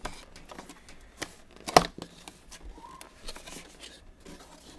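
A cardboard graphics-card box being handled and its lid pulled open: scattered rubbing and scraping of card, with one sharp knock a little under two seconds in, the loudest sound.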